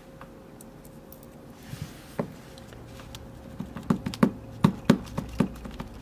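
Small sharp clicks and taps of a Mul-T-Lock 7x7 dimple lock's plug and pins being handled over a pin tray during disassembly: a single click about two seconds in, then about half a dozen in quick succession in the second half.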